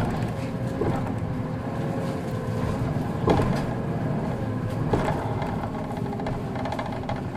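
Hino 2DG-HX9JLCE bus on the move, heard from on board: the diesel engine runs steadily under road noise, with a faint wavering whine in the first few seconds and two short knocks about three and five seconds in.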